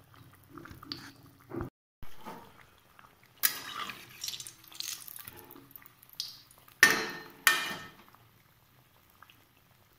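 Besan-battered potato chops (aloo chop) deep-frying in hot oil in a metal kadai: the oil spits and crackles irregularly as a spatula moves them, with two louder sizzling bursts about half a second apart after the middle.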